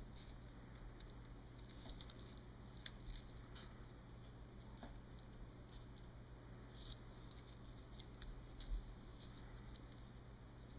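Scissors snipping through thin folded paper in short, faint, irregular cuts.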